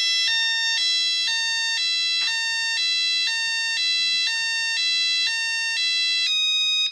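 Mini alarm system's built-in electronic siren sounding a loud two-tone hi-lo wail, switching between a high and a low note about every half second. Near the end it changes to a single steady note and cuts off suddenly.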